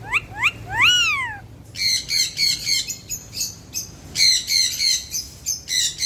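Alexandrine parakeets calling: three rising-and-falling whistled calls at the start, then two bouts of rapid, harsh chirps, about three a second.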